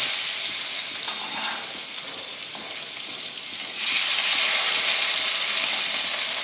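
Fried pointed gourds (potol) sizzling in hot oil in a kadai. The sizzle eases for a couple of seconds, then grows louder again about four seconds in as a spoon turns them.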